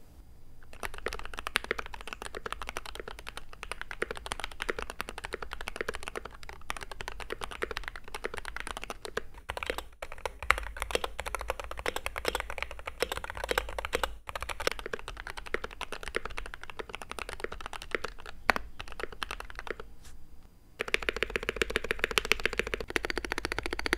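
Fast, continuous typing on a Wooting 60HE magnetic-switch keyboard, heard in turns as the modded build (lubed switches and springs, foam in a new case, white DCX keycaps) and as the stock board. The keystrokes run as a dense patter of clicks, louder near the end.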